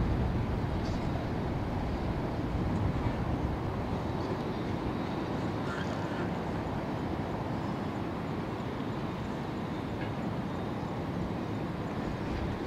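Steady distant harbour rumble and hiss: the low drone of ship and tugboat engines carried across open water, with a few faint short calls.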